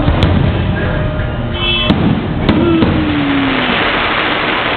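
Aerial fireworks shells bursting overhead: about four sharp bangs, two of them close together around the middle, over a continuous background din.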